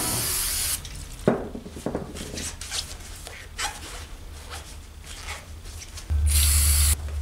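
Cloth rubbing and wiping a small chrome part by hand, with light clicks and knocks of metal being handled. A short loud hiss comes in the first second and again about six seconds in.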